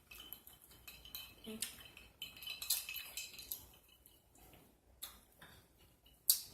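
Metal cutlery clinking and scraping against dishes during eating: a string of light taps and clicks, with one sharp clack near the end.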